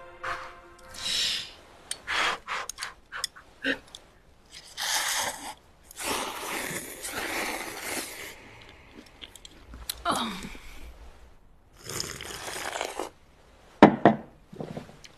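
A woman slurping noodles and chewing noisily. The long, loud slurps come again and again, with short clicks and a few breathy voiced sounds between them.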